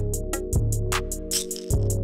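Background instrumental music: a beat with deep held bass notes and fast hi-hat-like ticks, about five a second, over steady sustained synth tones.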